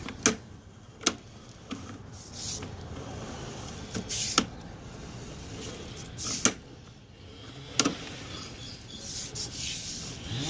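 Irregular clicks and knocks, a few of them sharp, with short hissing rushes, from a sewer inspection camera and its push cable being worked along a sewer line.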